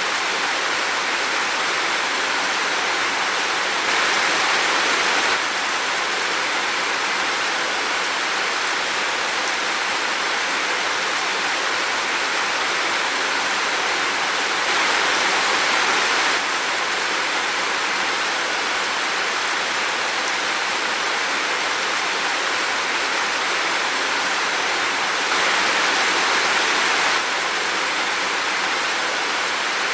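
Heavy rain falling steadily as a dense, even hiss, swelling slightly for a second or two three times, about every eleven seconds.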